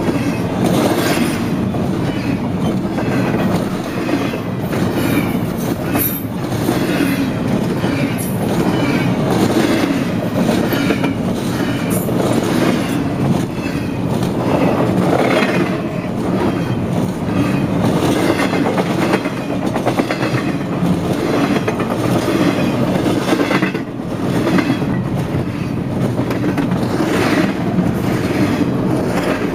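CSX intermodal freight train's double-stack container cars rolling past, their wheels clacking steadily over the rail joints.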